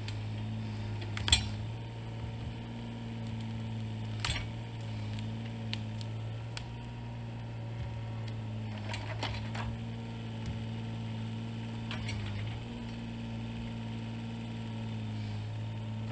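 Kubota mini excavator's diesel engine running steadily under load as it digs, its pitch wavering slightly, with a few sharp metallic clanks and knocks, the loudest about a second in.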